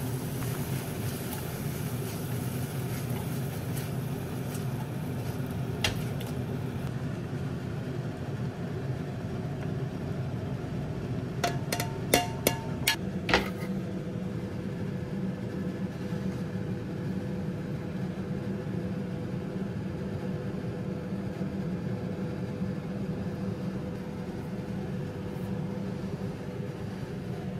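Steady low hum with a quick run of sharp, ringing clinks about twelve seconds in, like a metal utensil knocking against a ceramic plate as the gnocchi are plated.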